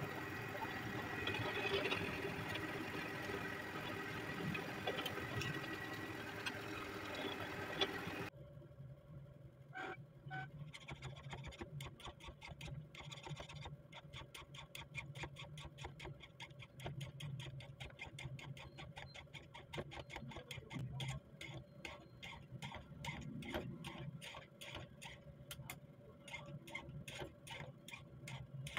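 A bench drill press runs with its bit cutting into a small steel rifle ejector part, a continuous grinding whir with a steady high tone. About eight seconds in this stops abruptly and gives way to a hand file rasping over the steel part in quick, regular strokes, thinning it.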